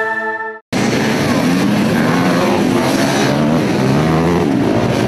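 The tail of a chiming intro jingle cuts off, then a pack of enduro dirt bikes are heard revving and accelerating together. Several engines run at once, their pitches rising and falling.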